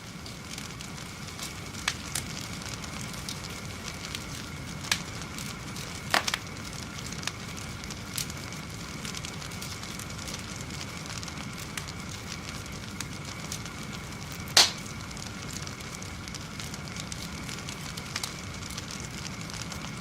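Fire burning: a steady rushing crackle with scattered sharp pops, the loudest about two-thirds of the way through.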